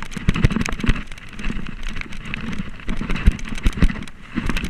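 Downhill mountain bike descending a rough dirt trail at speed: tyres rushing over the ground, with rapid, irregular clattering and knocks from the chain, frame and suspension over roots and bumps.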